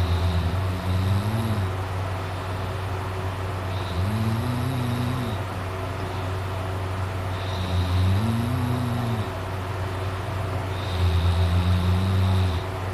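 A sleeping person snoring: four snores about every three to four seconds, each a rough, pitched drone that rises and falls, over a steady background hum.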